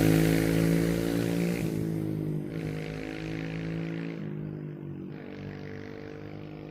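Kawasaki KLX110 dirt bike's single-cylinder four-stroke engine running at fairly steady revs and fading as the bike moves away. Its pitch shifts briefly a few times.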